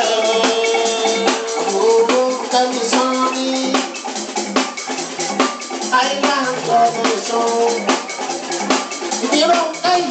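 Live Fuji band playing: fast, dense drumming and percussion under long held tones. The sound is thin, with almost no deep bass.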